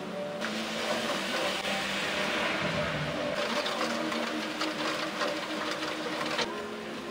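A burst of heavy rain with hail pelting a window, many small ticks in it. It starts about half a second in and cuts off abruptly near the end, with a brief low rumble in the middle.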